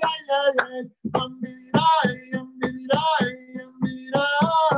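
A man singing a melody in sung phrases, with a steady low note held underneath.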